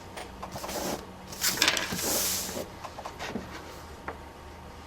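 Light clicks, taps and a brief rustle of hands handling small tools and parts at a workbench during soldering work.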